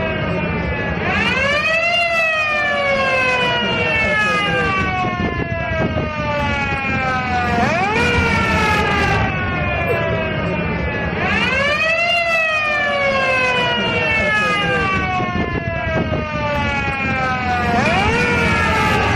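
A 1960 ambulance siren wailing. Its pitch climbs quickly over about a second and then slides slowly down for several seconds before climbing again, four times, over a steady low rumble.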